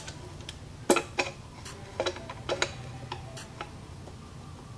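Channel-lock pliers and a large steel circlip clicking against a Holset turbocharger's housing as the circlip is forced into place without the special circlip tool. The clicks are light and come at irregular intervals, about eight of them.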